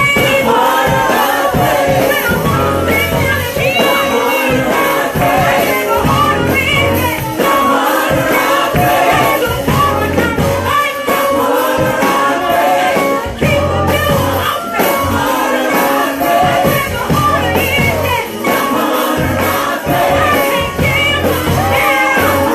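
Gospel praise and worship music: several voices singing together over a band with a recurring bass pulse.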